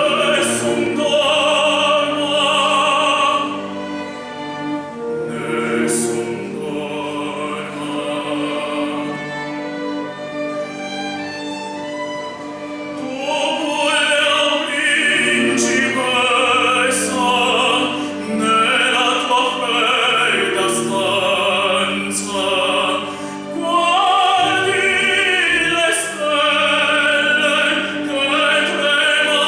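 A string orchestra of violins, cellos and double bass plays a classical piece in sustained, vibrato-laden lines. It goes quieter for a while, then swells fuller about 13 seconds in.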